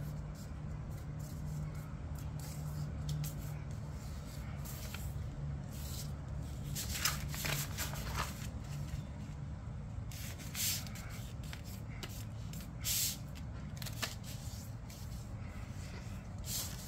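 A sheet of paper being handled and creased by hand while folded, giving short rustles and scrapes every few seconds over a steady low hum.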